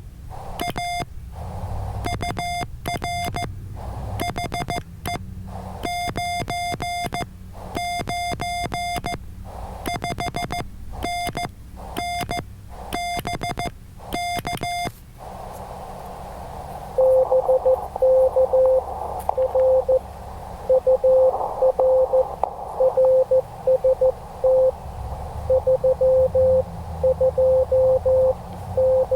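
Morse code on a ham radio transceiver. For about the first fifteen seconds the transceiver's sidetone beeps out code keyed with paddles. Then a lower-pitched, louder Morse signal from another station answers through the receiver over a band of hiss.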